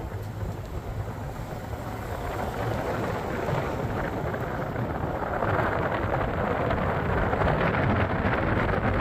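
Steady road and wind noise of a moving car, with rumble from the wind on the microphone, getting louder about five seconds in.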